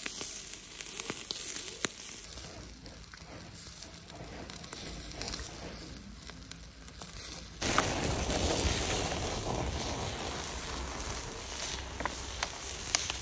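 Open fire crackling with scattered pops. About seven and a half seconds in it cuts abruptly to a louder, fuller hiss with sharper pops.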